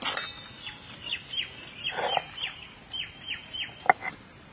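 Birds chirping: a run of short, falling calls, a few a second, with a sharp tap or two near the end. A steady high insect drone sounds behind them.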